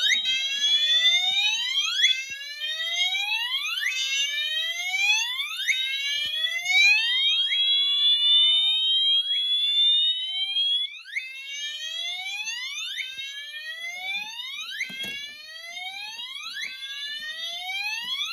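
A Gentex Commander 2 horn strobe and a Wheelock MT weatherproof horn strobe sounding their whoop tones together, one on slow whoop and the other on a faster whoop, so two series of rising sweeps overlap out of step. The whole sound becomes somewhat quieter about eleven seconds in.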